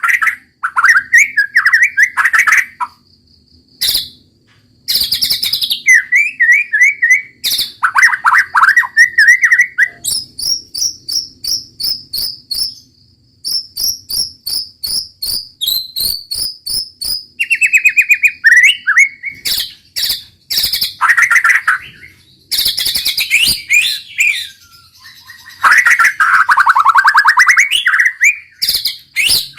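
White-rumped shama singing loud, varied phrases one after another: runs of fast repeated notes, trills and sharp clicking notes, with short breaks between phrases.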